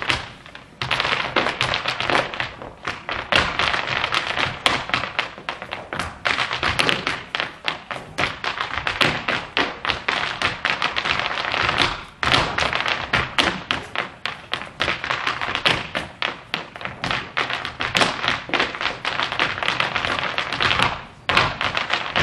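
A group of Irish dancers in hard shoes tapping out a rapid, closely unison rhythm on the stage floor with no music, with short breaks about a second in, midway and near the end.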